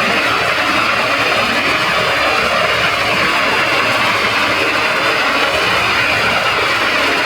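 Heavily processed, distorted audio from a 'robot' effect chain: a dense, harsh, steady wash with warbling tones underneath.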